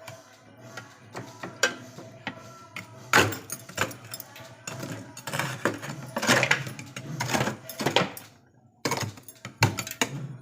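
Knocking and clattering of ice chunks being broken loose and pulled out of a partly thawed, iced-up fridge freezer, in irregular sharp knocks of varying loudness.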